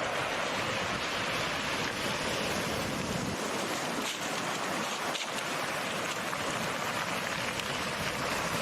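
Steady rushing wash of sea waves, an even noise with no clear breaks.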